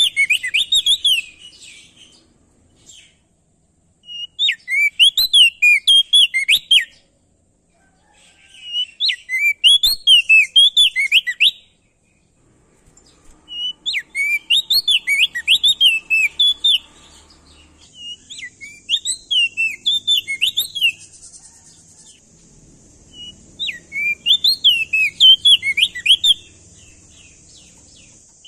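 Prenjak daun songbird singing a series of rapid phrases of quick rising-and-falling whistled notes. Each phrase lasts two to three seconds, with short pauses between them. A faint steady hiss comes in about two-thirds of the way through.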